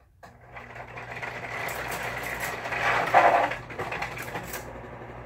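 Electric fan switched on: its motor hum comes in about a quarter second in, with louder rattling and clattering through the middle, then it settles into a steady hum.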